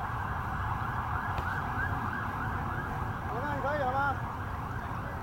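Emergency-vehicle siren warbling quickly up and down, loudest between about three and a half and four seconds in, over a steady hiss.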